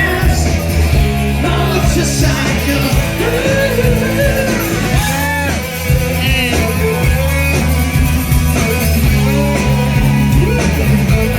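A rock band playing live: electric guitars, bass and drums, with a male lead vocal singing the melody over them.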